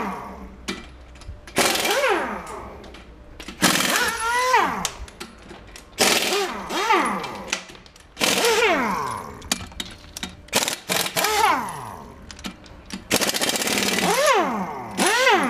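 Pneumatic impact wrench working the nuts of a tractor rear wheel: about six separate bursts roughly two seconds apart. Each burst is a rattling run whose whine falls in pitch as the tool spins down.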